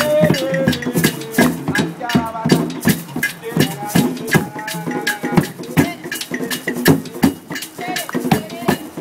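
Hand drums played in a quick, steady rhythm, with voices calling and singing along over the beat.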